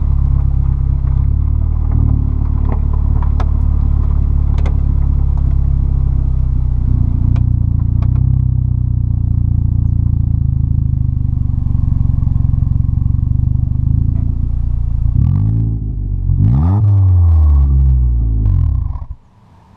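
The 2010 Ford Fusion's 2.5-litre inline-four running through a custom exhaust, heard at the tailpipes: a steady low drone with a few sharp ticks. Near the end the exhaust note dips and rises in pitch a couple of times, then cuts off suddenly.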